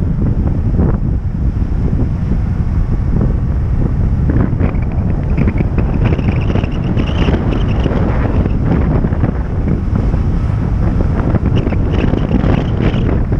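Wind buffeting the microphone of a car driving down a mountain road: a loud, steady low rumble with no break.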